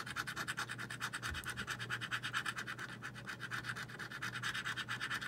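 Edge of a coin scratched rapidly back and forth across a lottery scratch ticket, rubbing off the scratch-off coating in quick, even strokes, about ten a second.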